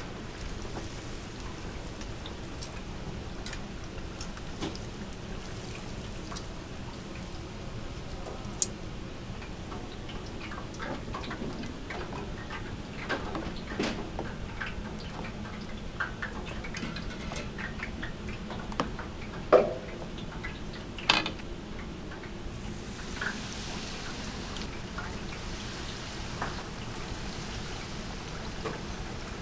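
Chicken skewers sizzling as they cook, a steady crackle with scattered ticks, broken by a few sharper clicks and knocks of kitchen utensils, the loudest about two-thirds of the way through.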